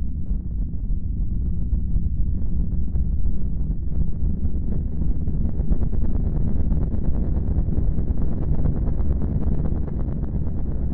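Steady low rumble of wind buffeting the microphone, swelling slightly partway through.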